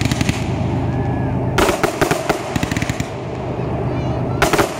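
Fireworks going off in rapid strings of bangs and crackles over a continuous rumble of reports. There are two bursts of dense crackling, one about one and a half seconds in and one near the end.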